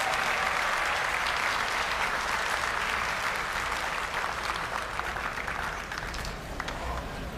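Audience applauding, thinning out gradually toward the end.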